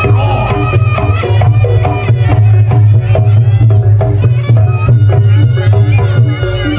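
Loud Reog Ponorogo gamelan accompaniment: fast, dense kendang drumming over a steady low gong hum, with held melodic tones above.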